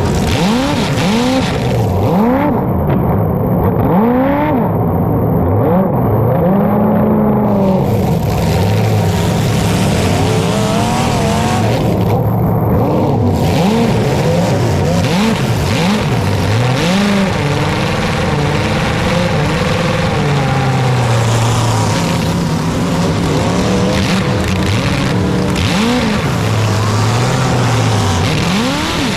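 Several super stock race car engines racing together, each revving up and dropping off again and again as the cars lap the track.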